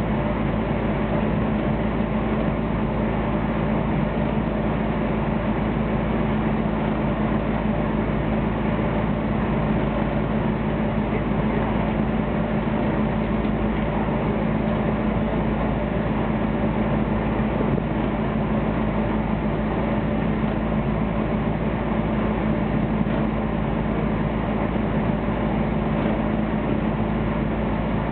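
Fishing boat's engine running steadily, a constant drone with a low hum.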